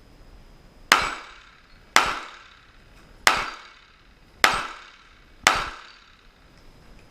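Five 9 mm pistol shots from a Glock 19X, fired about a second apart, each followed by a short ringing echo.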